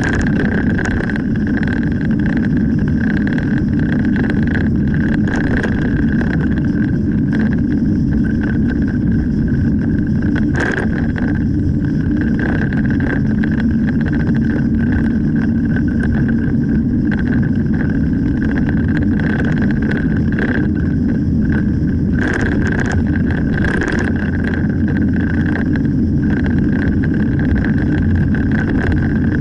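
Steady road noise inside a moving car's cabin: engine and tyre drone at cruising speed, with a few short clicks about a third of the way in and again a little past two-thirds through.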